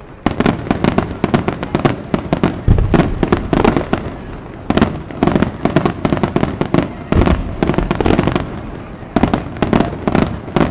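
Del Vicario aerial fireworks display: a dense, rapid barrage of shell bursts and sharp reports, many bangs a second, starting just after the opening moment.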